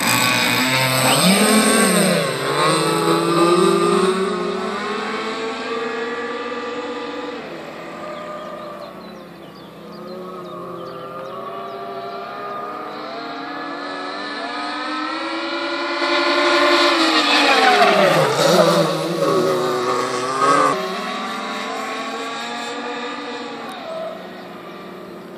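Tuned petrol two-stroke engine of a radio-controlled model speedboat running at high revs. It passes close twice, a little after the start and again around eighteen seconds in, its pitch dropping as it goes by, and fades between the passes.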